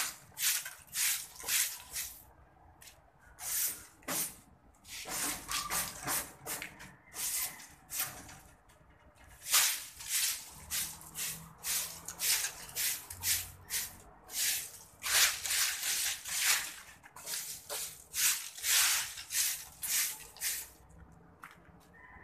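Broom sweeping a concrete floor: repeated short swishing strokes, about one to two a second, with brief pauses between runs.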